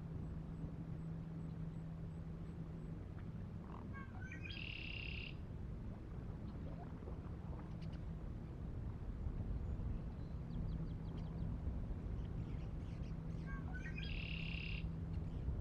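A songbird sings the same short phrase twice, once about a third of the way in and again near the end: a few quick notes, then a buzzy trill. Under it runs a low steady hum and rumble.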